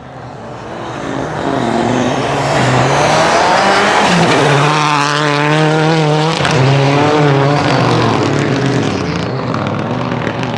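Renault Clio N5 rally car's engine accelerating hard, growing louder over the first couple of seconds as the car approaches. Its pitch climbs and drops back at each of a few upshifts.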